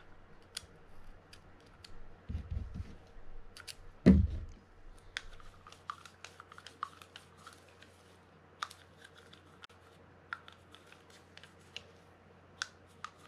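A small screwdriver and then a toothbrush scraping and clicking inside the metal spool of a Shimano Stradic 4000FJ fishing reel, cleaning worn drag-washer fibers out of the drag compartment. There is one heavy knock about four seconds in, and light scattered clicks after it.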